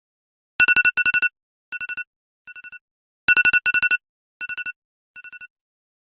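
Telephone ringtone: a rapid trilling ring sounding twice, then two fainter repeats of it, with the whole pattern played twice.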